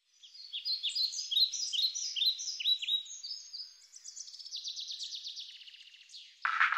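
Small songbird singing: a run of quick chirping phrases, then a fast trill of repeated notes. Music begins just before the end.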